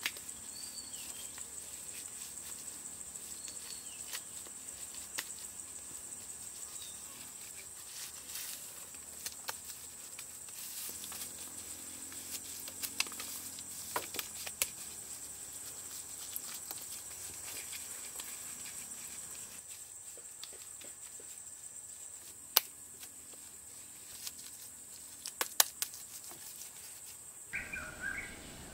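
Steady high-pitched insect chirring, with scattered sharp clicks and knocks over it.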